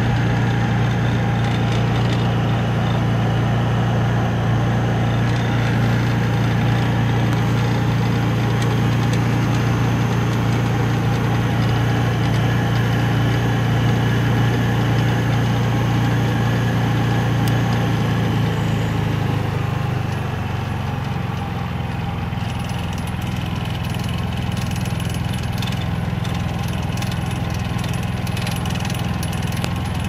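Honda 3000i inverter generator running steadily. About two-thirds of the way through, its note drops lower and a little quieter as the engine slows down: the Eco Throttle bringing the engine speed down to match the load.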